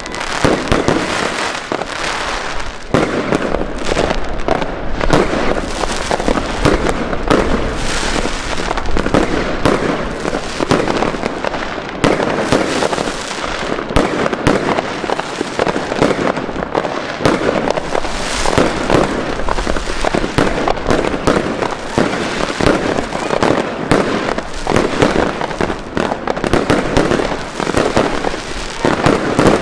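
Fireworks going off without a break: many rapid bangs of aerial bursts over a continuous crackle.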